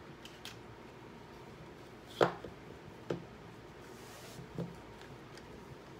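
Small makeup items and their packaging being handled: one sharp click about two seconds in, then a couple of softer taps and a brief rustle.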